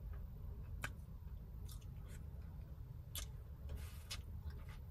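Eating a seafood boil by hand: scattered short clicks and crackles as shellfish are picked from a bowl and eaten, over a low steady hum.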